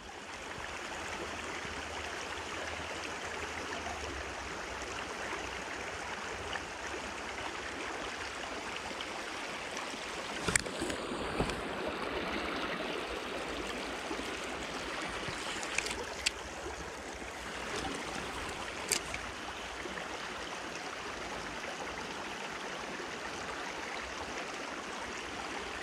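Shallow river water rushing steadily over stones, with a few sharp clicks about ten, sixteen and nineteen seconds in.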